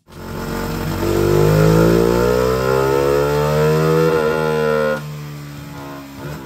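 1998 Suzuki FX125's DOHC four-stroke single-cylinder engine in a dyno pull, its note climbing steadily in pitch under load. About five seconds in the revs drop abruptly and it runs on at a lower, quieter note.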